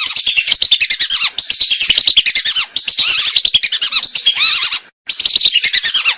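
Lesser whistling ducks calling: loud, rapid runs of shrill whistled notes that fall in pitch, coming in bursts of one to two seconds with short breaks between them.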